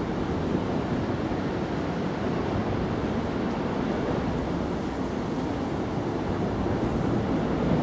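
Washing machine running: a steady low rushing noise with no breaks.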